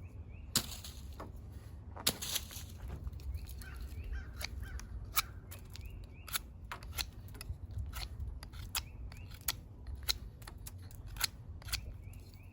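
A Swiss Army knife blade cutting and carving into a piece of fatwood: a run of short, sharp cracks and clicks at irregular intervals, about one or two a second.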